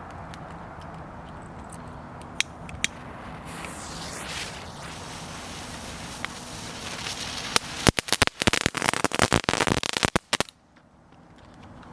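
Weco Creepy Crackles youth firework crackling: a dense, rapid run of sharp cracks starting a little before the eighth second, lasting about two and a half seconds and cutting off abruptly. A couple of single sharp pops come earlier.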